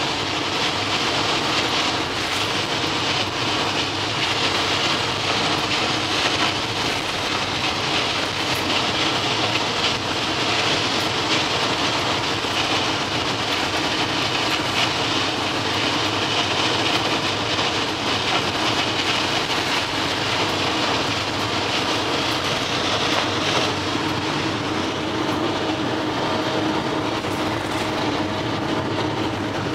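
A vehicle running steadily: an even, unbroken drone with no change in pace.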